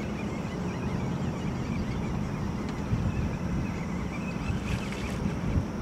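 Boat motor running steadily at trolling speed, with wind buffeting the microphone and a couple of low thumps.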